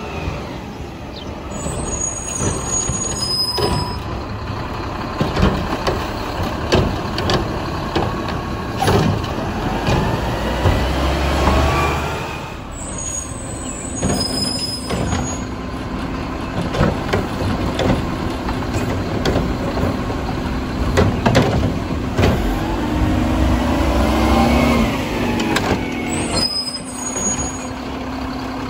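Mack LEU front-load garbage truck running and working a pickup. Its diesel engine rises and falls in pitch under the hydraulics, with repeated metal clanks and bangs and hisses of the air brakes.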